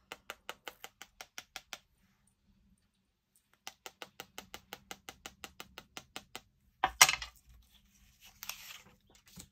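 A bone folder tapping quickly on a water painter loaded with alcohol and ink, about six light taps a second, to flick spatters of colour onto vellum. Two runs of taps with a short pause between, then a single louder knock near the end.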